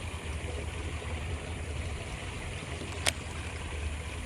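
Steady rush of falling water from a small waterfall, with a low rumble underneath and a single sharp click about three seconds in.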